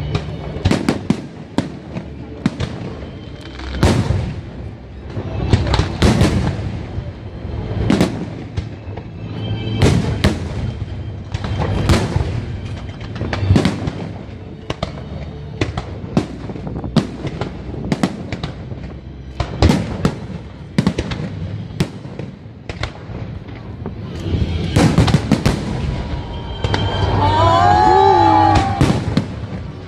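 Aerial fireworks shells bursting in quick succession, sharp bangs one after another with crackling between them. Near the end a pitched tone wavers up and down over the bursts.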